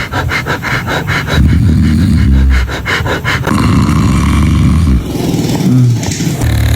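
A sleeping person snoring loudly: a run of long, rough, rumbling snores, one after another.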